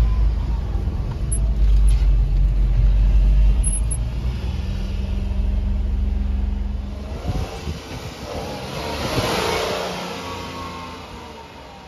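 A 1994 Daihatsu Hijet kei truck's small three-cylinder engine running as it drives, heard from inside the cab as a strong low drone. The engine fades out about seven seconds in, and a brief rush of noise rises and dies away near the end.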